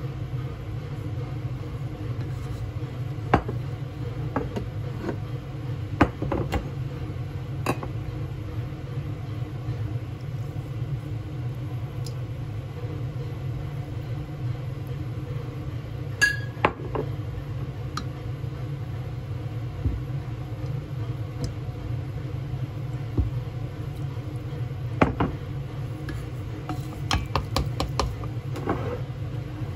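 Scattered light clinks and taps of a spoon, bottles and a stainless steel bowl as sauces are spooned over raw chicken wings, with a quick run of taps near the end. A steady low hum runs underneath.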